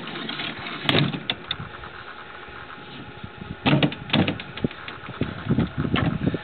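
Scattered knocks and clunks over a steady hiss: one sharp knock about a second in, then a cluster of irregular thuds in the second half.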